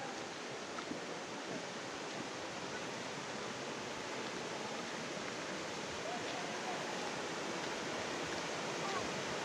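Waterfall rushing: a steady, even roar of water falling down a rocky hillside.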